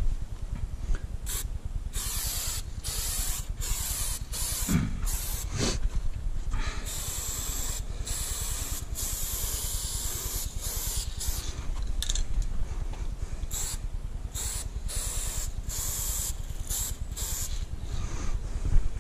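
Aerosol spray-paint can spraying in many bursts, some short and some lasting several seconds, hissing with brief pauses between them.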